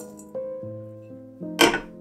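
Background music with held notes. About one and a half seconds in there is one short, loud clatter of chopped milk chocolate pieces tipped into a glass bowl.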